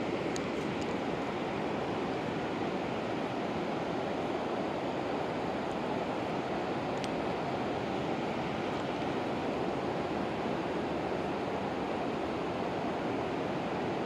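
River current rushing steadily, a constant even wash of flowing water.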